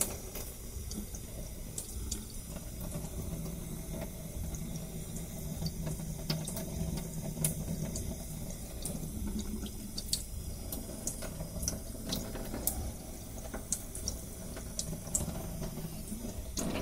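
Kitchen faucet running a thin stream of water onto a plastic disc golf disc held in the sink, the water splashing and dripping off it as the dye is rinsed away, with scattered sharp little ticks.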